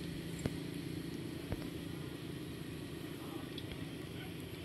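Steady low rumble of distant road traffic, with two short clicks in the first couple of seconds.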